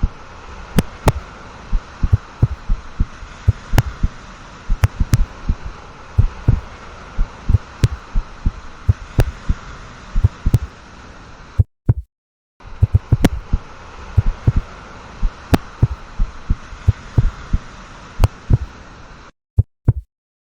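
Human heartbeat beating fast and regularly, about 125 beats a minute, each beat a low double thump (lub-dub). A steady hiss lies under it and drops out briefly about halfway and again near the end.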